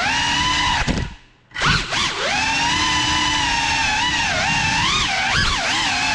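Small FPV quadcopter's electric motors and propellers whining, the pitch rising and falling with throttle. About a second in the whine drops away almost to nothing as the throttle is cut, then spins back up.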